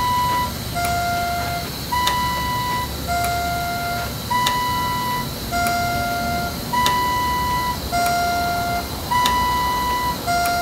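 Animatronic diagnostic program's test tones: two steady beeps, one higher and one lower, alternating about once a second, around nine in all, with a sharp click as the tones change as the pneumatic head mechanism cycles. A low steady hum runs underneath.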